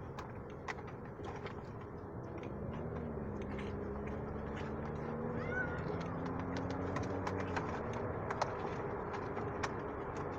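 A cat yowling in long, drawn-out low cries in a pet carrier inside a moving car, over a steady road hum with scattered small clicks; he is unhappy at being shut in the carrier.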